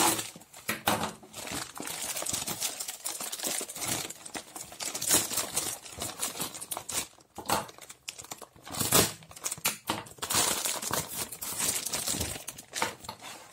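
Plastic courier mailer bag crinkling and rustling as hands grab and pull it open, in irregular bursts with the loudest about nine seconds in.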